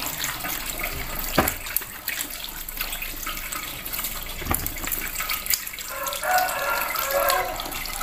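Tap water running and splashing over peeled cassava pieces as they are rinsed by hand over a plastic bowl in a stainless steel sink, with a couple of short knocks.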